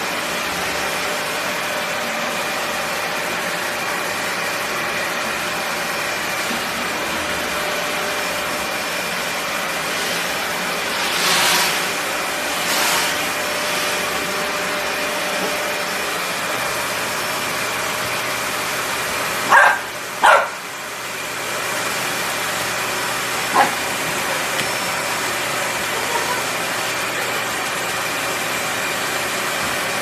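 Stick vacuum cleaner running steadily with a high whine, and a golden retriever puppy barking at it: two sharp barks in quick succession about two thirds of the way in, then one more short bark a few seconds later.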